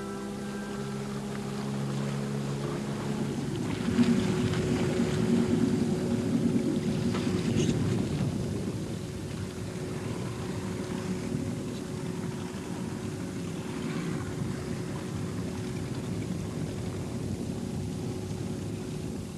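Small outboard motor running steadily as an open boat motors across the water, with wind on the microphone. Music fades out in the first few seconds, and the boat sounds loudest a few seconds in.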